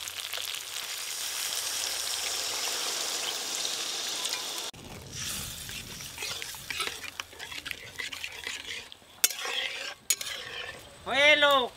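Masala gravy sizzling steadily in hot oil in a metal kadai. Then a metal spatula stirring and scraping through the gravy as water is worked in, with a couple of sharp clicks. A short, loud rising-and-falling voiced sound comes near the end.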